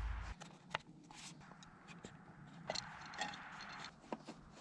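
Faint scattered scraping and clicking of small objects being handled, with a short low rumble of a bump on the microphone at the start.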